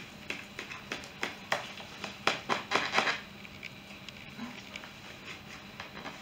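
A knife cutting through the crispy baked top of a pan of lasagne, making a quick series of crunches and clicks over the first three seconds, then going quieter.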